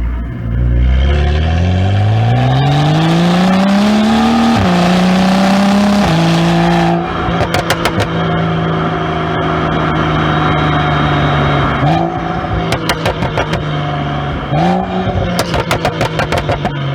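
BMW N55 turbocharged inline-six through a catless exhaust, pulling hard with the pitch rising steeply and dropping suddenly at two gear changes, then holding steady. After lifting off, and again after two short throttle blips, the exhaust gives rapid rattling crackles and pops on the overrun.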